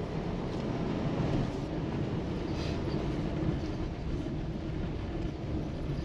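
Vehicle driving a rough dirt track on let-down tyres: a steady rumble of tyres on the track with rattling from the vehicle.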